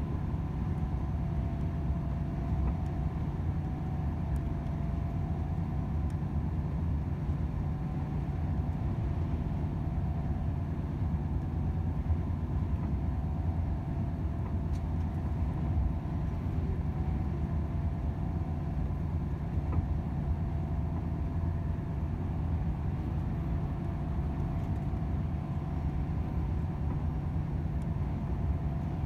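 Volvo FH 500 truck cruising: a steady low drone of its 13-litre six-cylinder diesel and road rumble, with a faint steady hum above it and no change in pace.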